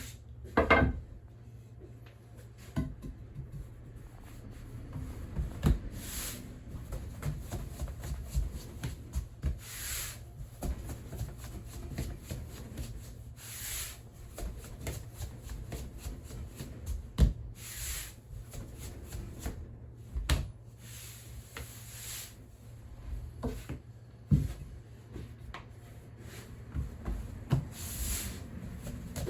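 Soba dough being worked by hand on a wooden board: soft rubbing and swishing strokes every few seconds, with scattered light knocks of wood, over a steady low hum.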